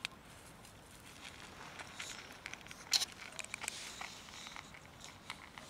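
Scattered light crackles and clicks from cats crunching dry kibble and stepping on dry fallen leaves, with a sharper crackle about three seconds in.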